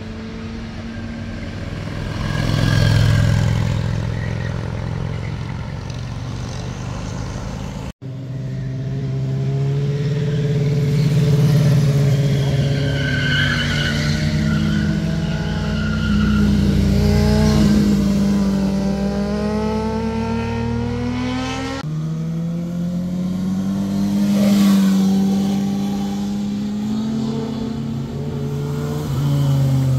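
Motorcycles riding through a hairpin bend one after another, each engine note rising and falling in pitch as the rider leans through the corner and accelerates out. The sound breaks off abruptly at about 8 seconds in and again at about 22 seconds, where one bike's pass gives way to the next.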